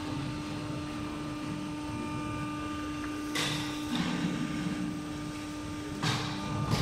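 Aluminum panel roll forming machine running with a steady hum and tone, with two louder noisy bursts, about three and a half seconds in and again near the end.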